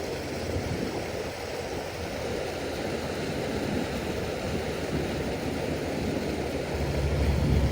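Steady rush of fast-flowing floodwater, with wind buffeting the microphone as a low rumble about seven seconds in.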